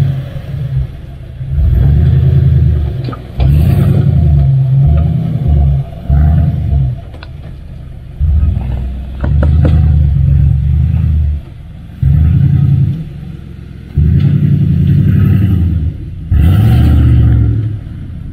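2021 Ford E-350's 7.3-litre Godzilla gasoline V8 running in repeated bursts of throttle, each a second or two long, dropping back toward idle in between, as the van crawls over rocks. A few sharp clicks come through.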